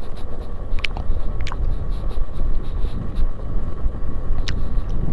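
Motorcycle ridden slowly on a dirt trail: steady low engine and road rumble with wind on the microphone, and three short sharp clicks, about one, one and a half and four and a half seconds in.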